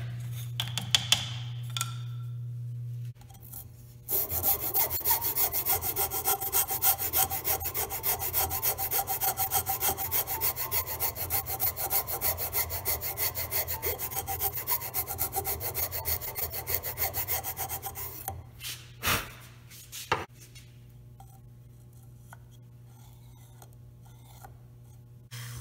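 A hand file rasped back and forth in a slot in thin plywood clamped in a bench vise, about three strokes a second for some fourteen seconds, smoothing a row of drilled holes into a slot for a 1/4-inch bolt to slide in. Before the filing a drill press motor hums, and after it come two sharp knocks.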